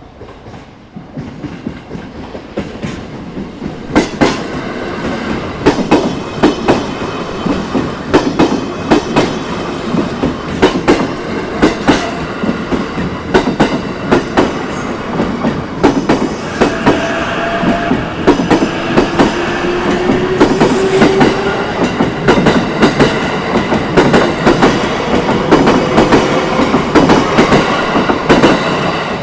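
An electric JR Minobu Line train passing close by. Its wheels clack over the rail joints in quick pairs, growing louder over the first few seconds as it nears, over a steady rumble. A faint rising tone runs through the middle.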